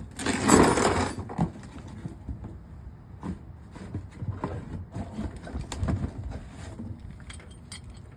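Metal brake pads and their clips clinking and tapping as they are handled and fitted to the caliper, with a short loud scraping rustle about half a second in.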